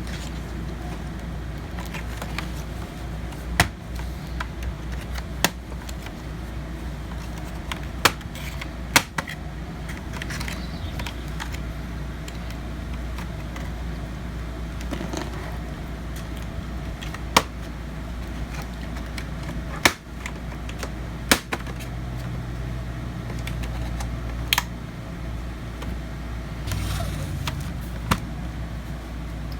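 Plastic palm-rest clips on an HP laptop snapping loose as the case is pried apart. It makes several sharp clicks spaced a few seconds apart, over a steady low hum.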